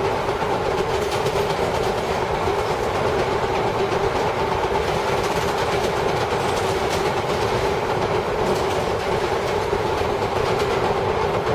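Vintage R7A New York City Subway car running at speed, heard from inside the car. It gives a loud, steady rumble with the clickety-clack of its wheels on the rails, on a car whose wheels have flat spots.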